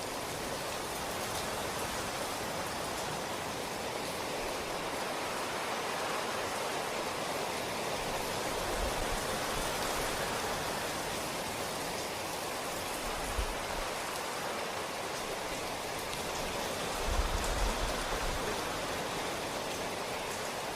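Steady rain falling, an even hiss with no pauses. A few brief low thumps or rumbles come through it, the strongest near the end.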